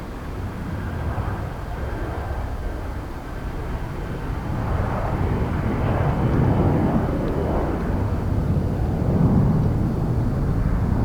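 Jet airliner engines rumbling and steadily growing louder as the aircraft comes closer.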